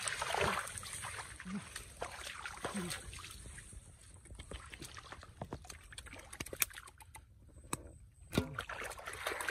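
Boots squelching and sloshing through wet mud, with many short wet splats and slaps as hands dig and fish are grabbed in the muddy water. Near the end a caught fish lands with a sharp slap in a metal basin.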